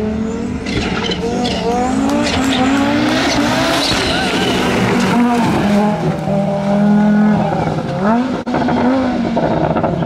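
Audi Sport quattro S1's turbocharged five-cylinder engine revving hard as the car drifts on a dirt track, its pitch rising and falling with throttle and gear changes, with a brief lift off the throttle near the end.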